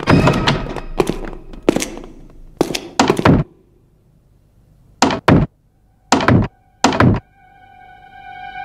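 A wooden door thudding and rattling in its frame as its handle is yanked: a quick run of sharp thuds, a short lull, then a few paired knocks. A single held musical note comes in and swells near the end.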